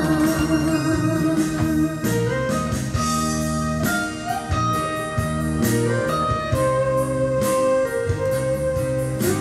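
Music with guitar and held, sustained notes over a steady beat.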